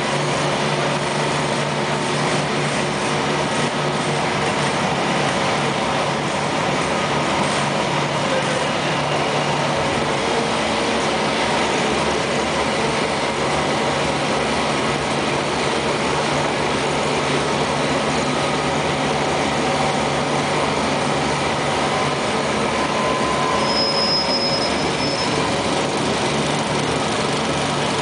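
Graffenstaden 1720 1L vertical turning lathe running under power: a steady mechanical whir with a constant low hum, and a brief high squeal near the end.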